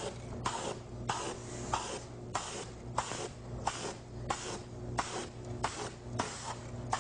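Aerosol spray can of primer hissing in short, evenly spaced bursts, about three every two seconds, as the nozzle is pressed and released to lay on a thin coat. A steady low hum runs underneath.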